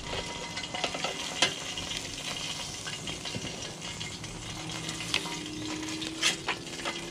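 A whole pompano sizzling in a hot air fryer basket pulled out partway through cooking, while metal tongs click and scrape against the basket as the fish is turned. A few sharp clicks stand out, about a second and a half in and twice near the end.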